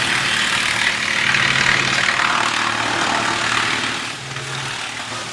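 Industrial wood chipper running: a steady machine hum under a loud, noisy rush, which eases somewhat about four seconds in.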